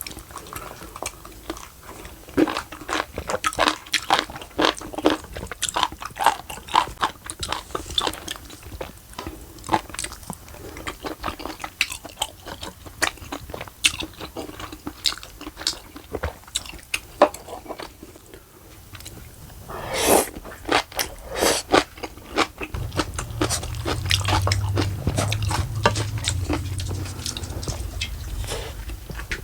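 A person chewing and crunching food up close, with many crisp bites, a louder burst about two-thirds through, and a low hum in the last few seconds.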